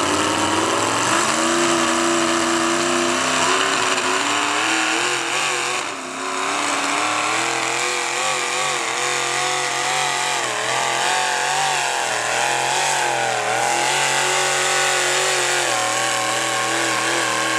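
Gas engine of a 4x4 pickup, with open exhaust stacks through the hood, run at full throttle while pulling a weight-transfer sled. It climbs in the first second, then holds high revs with a wavering pitch and a brief dip about six seconds in.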